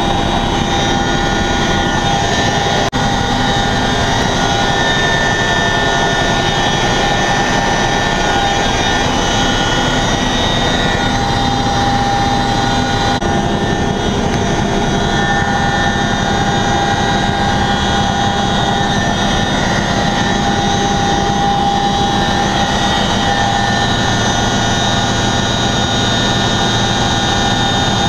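Boeing CH-47 Chinook tandem-rotor, twin-turbine helicopter in flight, heard from inside its cargo cabin: loud, steady engine and rotor noise with several constant whining tones over a low rumble.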